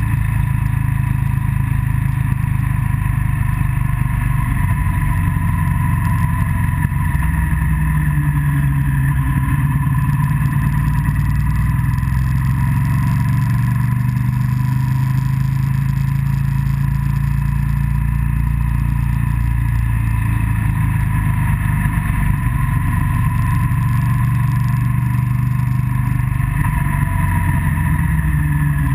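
Motorcycle engine running steadily at road speed, its note rising and falling gently, mixed with wind and road noise.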